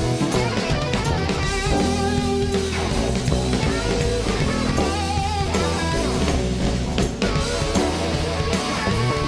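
Rock band playing a blues number: electric guitar over bass and drums, with a wavering lead line above.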